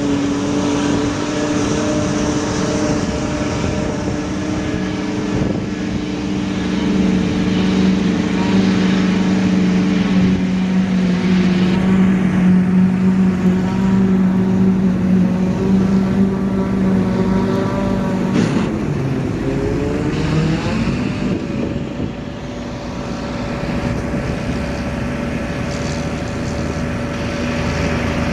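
Diesel farm tractor engine running steadily under load. Partway through, its pitch drops a little; later there is a short knock, and the engine revs up and settles at a higher steady speed.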